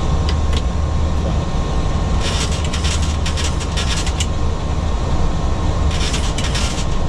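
Boeing 737-800 flight deck in the climb after takeoff: a steady low drone of airflow and engines. Two short spells of crackly hiss come over it, about two seconds in and again near the end.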